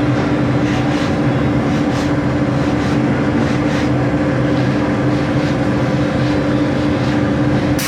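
Woodworking machinery in a door workshop running steadily, a constant machine hum over an even whir of cutting or sanding, changing abruptly to a hiss at the very end.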